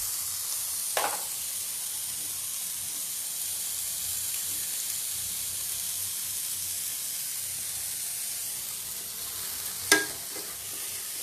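Marinated chicken pieces frying in oil in a frying pan, sizzling with a steady hiss as the spice coating fries. A spatula scrapes the pan about a second in and clacks sharply against a pan near the end.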